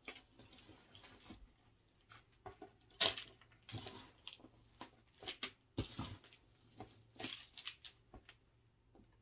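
Potting soil being scooped and poured into a plastic pot around a repotted philodendron Birkin: an irregular run of scraping and rustling noises, the loudest about three seconds in.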